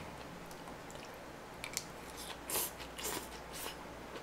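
Close-miked mouth sounds of a person eating a spoonful of maratang noodles with rice: a scatter of short wet smacks and clicks, the loudest about two and a half seconds in.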